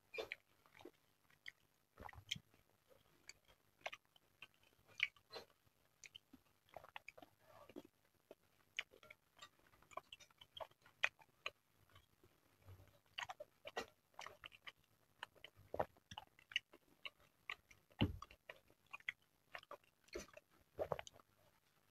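Close-miked chewing and mouth sounds of someone eating mini meatballs in egg broth, with many irregular sharp clicks and a few soft thumps.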